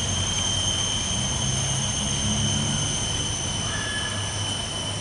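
Steady outdoor ambience: a continuous high-pitched whine at two pitches over a low hum, the hum swelling briefly in the middle.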